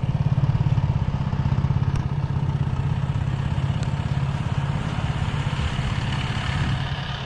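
A small engine running steadily with a fast, even pulse, fading away near the end.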